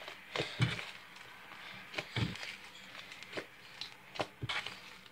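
Hands kneading and stretching fluffy slime made from glue, shaving cream and laundry detergent: soft irregular squishes and sticky little pops as it comes together.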